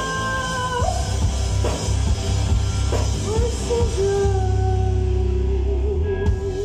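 Live rock band playing: electric guitar, bass guitar and drums, with a female singer holding long notes. A held note breaks off about a second in, and after a few drum hits a long wavering note is held to the end.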